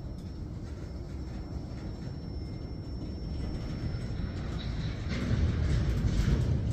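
Freight cars of a slow-moving train rolling past: a steady low rumble of wheels on rail that grows louder about five seconds in, with some higher-pitched scraping near the end.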